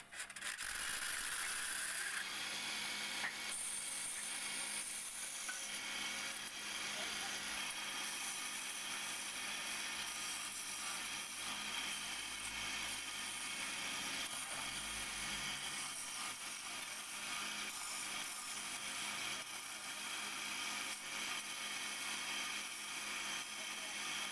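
Wood lathe running with a turning chisel cutting into a spinning wooden spindle: a steady scraping hiss of wood being shaved away, with small irregular ticks from the tool against the work.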